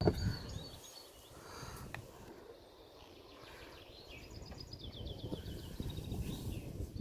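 A small songbird singing: a run of high chirps and a fast trill about four to five seconds in, over a low rumble.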